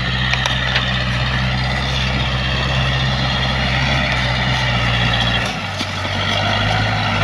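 A vehicle engine running steadily, its note dropping to a lower pitch about five and a half seconds in.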